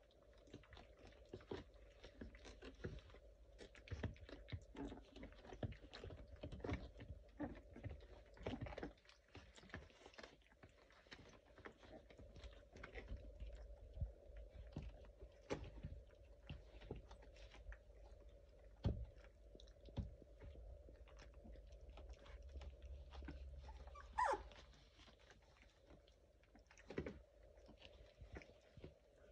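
Faint scuffling, clicking and mouthing sounds of 18-day-old Labrador puppies crawling over each other and chewing on one another, over a faint steady hum. Near the end there is a single short puppy whimper.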